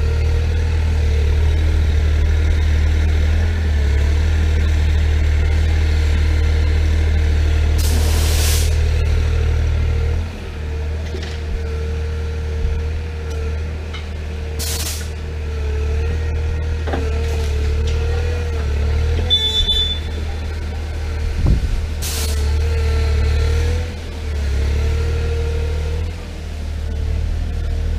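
Bobcat compact excavator working: a steady low diesel drone with a wavering hydraulic whine that shifts as the boom and bucket move, the engine note dropping about a third of the way in. Four short hisses come at roughly seven-second intervals.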